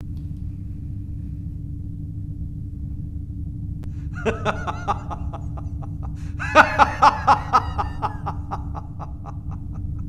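A man laughing: a short burst about four seconds in, then a louder, longer bout of rapid laughs from about six and a half seconds that tails off. A steady low hum runs underneath.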